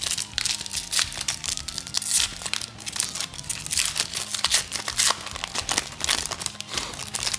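Foil trading-card pack wrapper crinkling and tearing as it is pulled open by hand: a dense run of crackles that stops near the end.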